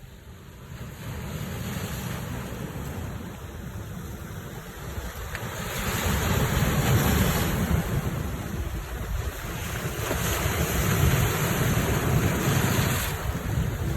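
Sea waves washing ashore, with wind buffeting the microphone as a low rumble. The sound swells louder about six seconds in and again around ten seconds.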